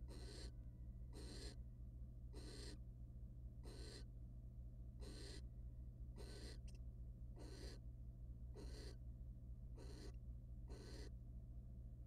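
Barn owl giving a steady series of short, breathy hissing snore calls, about one a second, each well under half a second long. A steady low hum runs underneath.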